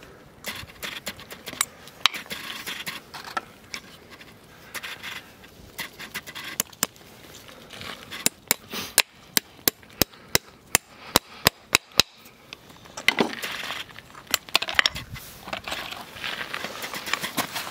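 Farrier's hammer driving nails through a steel horseshoe into the hoof: a series of sharp metallic taps, with a quick run of strikes in the middle and some scraping between strikes.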